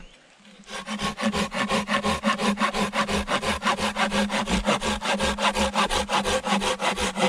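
Silky pruning saw cutting through a wooden pole by hand, with a quick, even rhythm of short rasping strokes that starts about a second in; the saw's teeth cut on the pull stroke.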